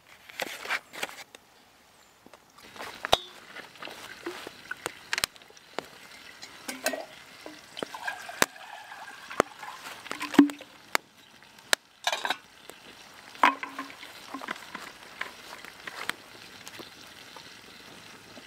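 Wood campfire crackling, with irregular sharp pops scattered throughout, mixed with the small sounds of eating: a fork scraping through food in a paper bag and brief mouth sounds.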